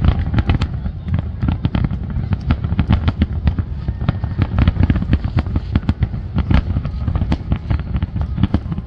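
Aerial fireworks shells bursting in a dense, rapid barrage: low booms and sharp cracks following one another several times a second without a pause.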